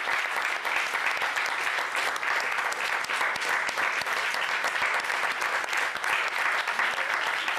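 Audience applauding, many hands clapping steadily without a break.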